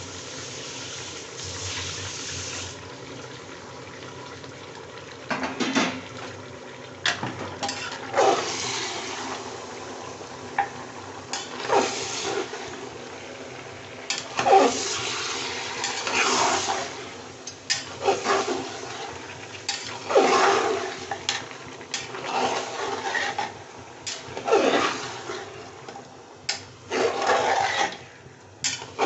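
Mutton and sliced onions sizzling in hot oil in an open aluminium pressure cooker. From about five seconds in, a metal spatula scrapes and clatters against the pot in repeated strokes as the meat is stirred.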